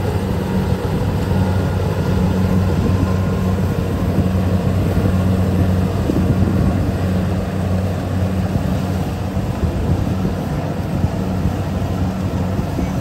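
Kubota DC-70 combine harvester running steadily while cutting and threshing rice: a loud, even machine hum from its diesel engine and threshing gear, with a low drone underneath.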